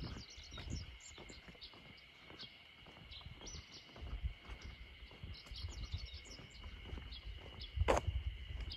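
Birds chirping in many short calls over a steady high insect drone, with uneven low thumps and one sharp click just before the end.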